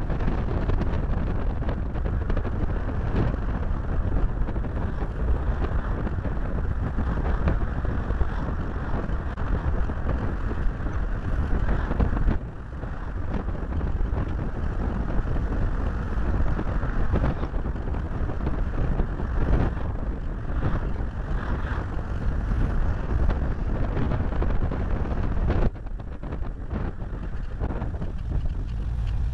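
Wind and road noise from a moving VW Beetle, picked up by a small camera taped to the car's bonnet, so the wind buffets the microphone. The noise drops suddenly about twelve seconds in and again near the end.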